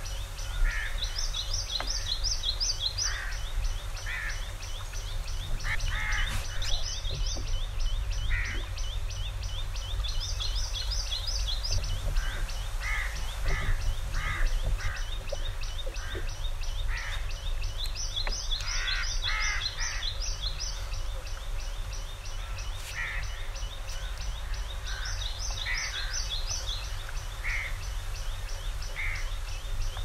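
Several birds singing and calling. One repeats a fast, high trill of rapid even notes in bursts of one to two seconds every few seconds, and others give single lower calls in between. A steady low rumble of breeze on the microphone runs underneath.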